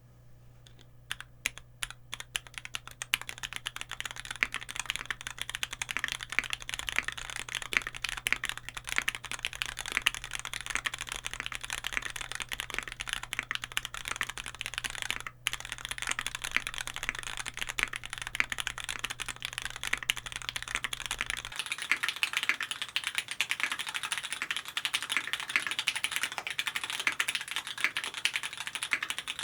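Typing on a Keycult No.2 aluminium gasket-mount keyboard with lubed Cherry MX Nixie switches and GMK keycaps. It opens with a few separate keystrokes, then becomes a fast, dense run of key clacks with a brief break about fifteen seconds in.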